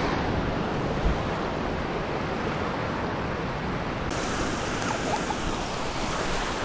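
Steady rush of surf breaking and washing up on the beach. About four seconds in the rush turns brighter and hissier.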